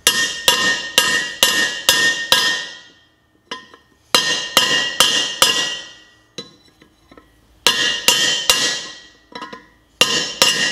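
Hammer striking a steel flat chisel held on the outer edge of a small bearing, driving it the last bit into a Speed Queen Horizon washer's cast aluminium bearing housing. Sharp ringing metal strikes come about two a second, in bursts of about six, four, three and two with short pauses between.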